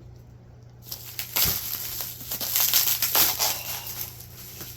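Plastic packaging being handled and crinkled during an unboxing: a run of crackling, rustling noises starting about a second in, busiest in the middle and tapering off near the end.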